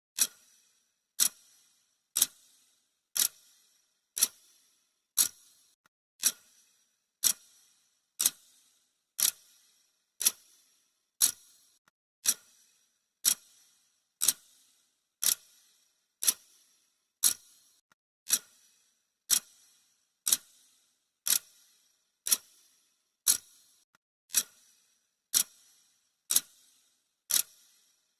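Clock-ticking sound effect: one sharp tick a second, evenly and steadily.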